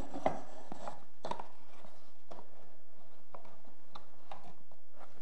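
Light taps and scrapes of a short coped piece of baseboard trim being pushed by hand into an inside corner against the wall and floor, test-fitting the coped joint.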